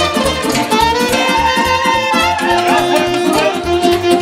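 Lively folk dance music with a steady pulsing bass beat under a sustained melody line.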